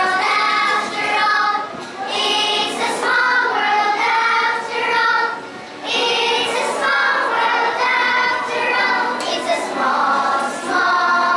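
A group of young girls singing together in short phrases.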